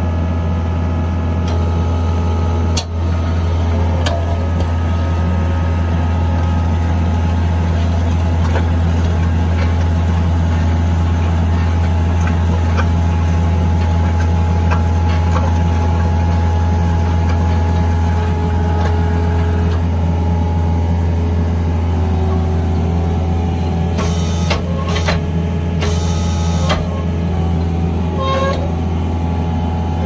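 Skid loader engine running steadily under load, driving a hydraulic auger boring a pier hole in dry soil, with a steady hum and a higher hydraulic whine. A few short scraping bursts come near the end.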